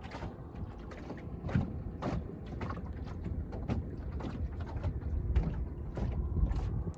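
Low wind rumble on the microphone, with irregular clicks and knocks about every half second to a second, typical of handling or gear knocking in a small boat.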